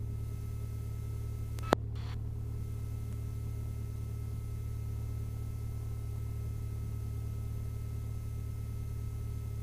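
Lycoming IO-360-A1A four-cylinder engine running at a steady warm-up idle, heard as a low, even drone with faint steady tones above it. A single sharp click comes about two seconds in.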